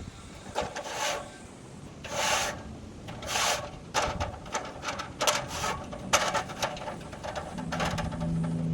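Several separate rasping, scraping strokes, followed by a run of sharp clicks and rattles; a low steady hum comes in near the end.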